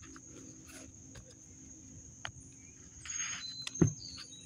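Tarot cards being handled and shuffled: small clicks, a short papery rustle of the deck about three seconds in, and one sharp tap near the end. Insects trill steadily behind, with a high, even tone.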